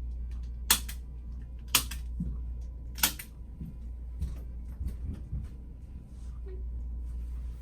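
Three sharp clicks about a second apart from a spring-loaded Activator chiropractic adjusting instrument, each click one adjusting thrust, followed by a few fainter ticks over a steady low hum.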